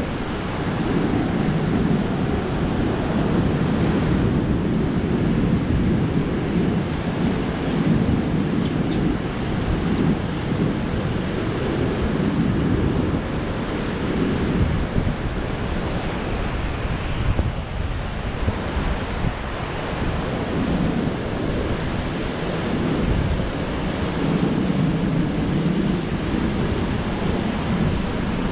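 Ocean surf breaking on the beach, mixed with wind buffeting the microphone: a steady low rumble that swells and eases every several seconds.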